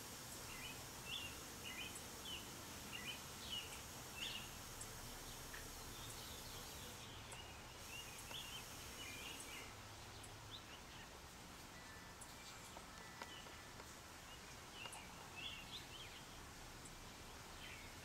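Sparrows chirping faintly: short, high chips in loose clusters, with pauses of a few seconds between them.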